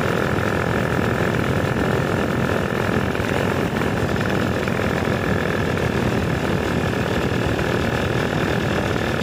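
Paramotor engine and propeller running steadily under power in flight, a constant drone at an even level.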